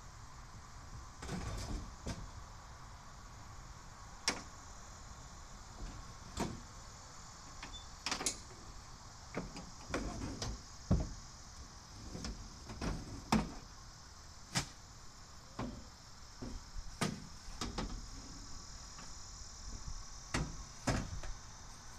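Irregular knocks, clunks and rattles, one every second or so, from hands working at an old truck's door window and a step ladder being moved out of the doorway.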